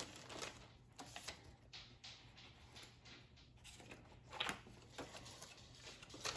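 Faint rustling of a plastic bag and paper, with scattered light handling clicks, as a printed instruction manual is drawn out of its bag and handled. A low steady hum runs underneath.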